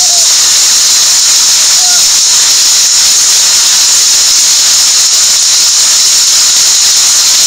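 Heavy hailstorm: hail and rain pelting roofs and the ground in a loud, steady hiss.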